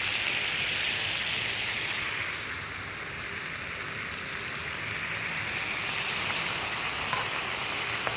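Tomato and vegetable sauce with chicken broth just poured in, sizzling and bubbling steadily in a hot cast-iron skillet.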